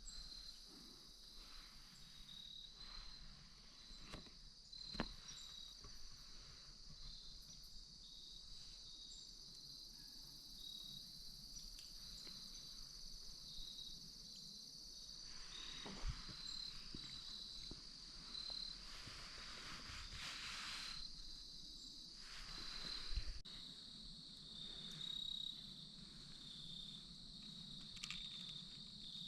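Steady high-pitched insect chorus with a pulsing trill. Brief rustles come and go, and three sharp clicks stand out as the loudest moments.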